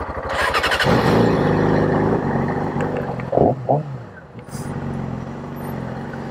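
Motorcycle engines running at a standstill. The engine revs up briefly near the start, settles into a steady idle, and is blipped twice in quick succession a little past the middle before idling on.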